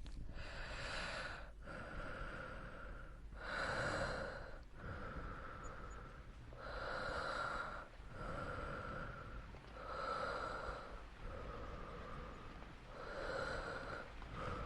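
Slow, close-miked human breathing, each breath in and out drawn out over about a second and a half, a full breath roughly every three seconds.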